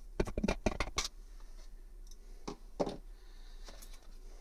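Small screwdriver backing out the battery-cover screw on a plastic digital multimeter. There is a quick run of light clicks and scrapes in the first second, then two more clicks a couple of seconds later as the meter is handled.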